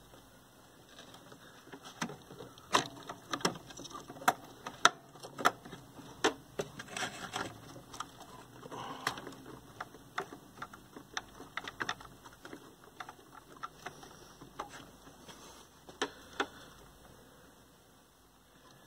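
Irregular small clicks, ticks and rustles of wiring and a circuit board being handled and pushed into place inside a television chassis, busiest in the first half and dying away near the end.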